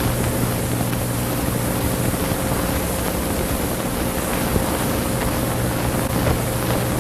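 Steady hiss with a low hum and a faint steady tone: the background noise of an old film soundtrack playing under silent title cards.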